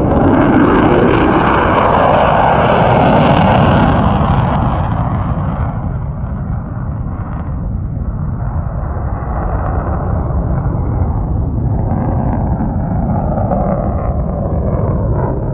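Jet noise from two F-35A Lightning II fighters at full afterburner: loud and broad for about the first five seconds, then easing to a lower, steadier rumble as they pull away.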